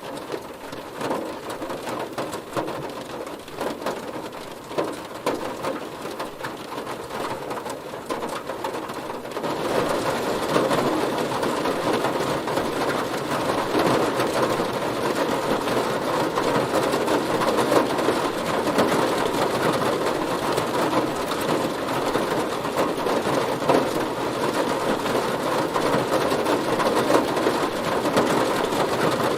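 Heavy rain drumming steadily on a car's roof and body, growing louder about a third of the way in.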